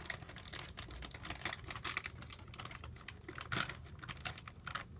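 A quick, irregular run of sharp clicks and crackles from hands at work, such as a plastic snack bag being handled and torn open.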